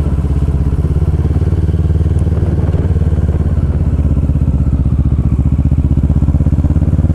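Motorcycle engine running under way at low road speed, a steady deep beat of exhaust pulses, its note creeping up a little near the end.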